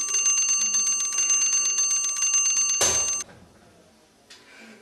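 Mechanical alarm-clock bell ringing in a fast, continuous trill, then cut off suddenly about three seconds in.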